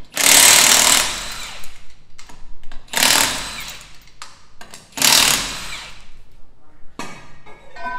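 Impact wrench run in three bursts of about a second each, taking the lug nuts off a rear wheel; a sharp click follows near the end.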